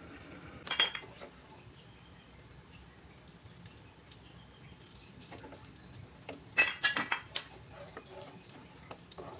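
A ladle knocking and scraping against a non-stick wok while stirring liquid in it. There is a short clatter about a second in, a louder run of knocks around seven seconds, and one more knock near the end.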